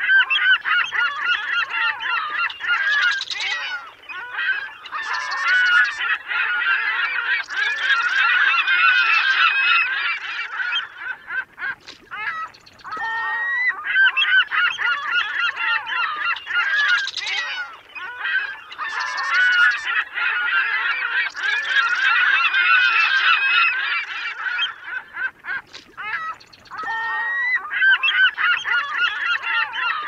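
A flock of gulls calling, many harsh squawking calls overlapping densely, with a brief lull about every thirteen seconds.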